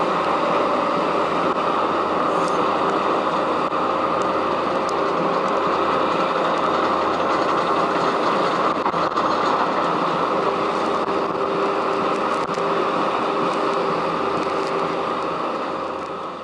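Terex Finlay J-1170 jaw crusher and Doosan DX380LC excavator running together in a steady, loud mechanical din with a few scattered clicks. The sound fades out near the end.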